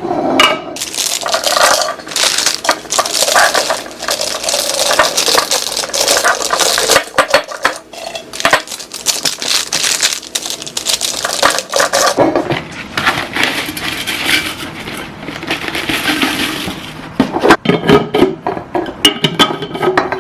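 Tea bags and sweetener packets being poured and dropped into a storage container: a dense rustling and pattering of small packets in two long runs, with a short break about twelve seconds in and a few sharp clicks of the container near the end.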